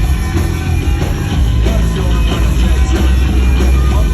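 Live rock band playing loudly between sung lines, with heavy bass and drums.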